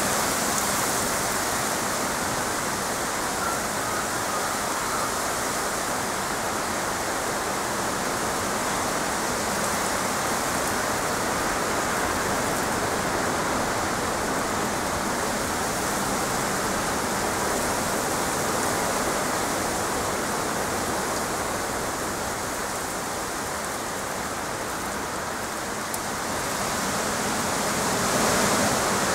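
Heavy rain pouring steadily through trees and onto grass: a dense, even hiss that swells a little near the end.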